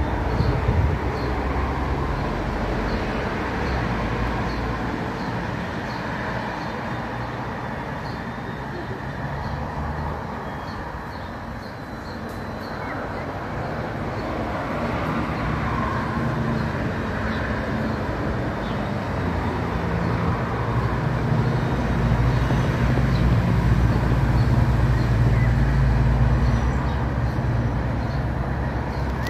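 Steady low rumble of traffic outside, swelling louder about three-quarters of the way through, with faint high ticks about once a second during the first half.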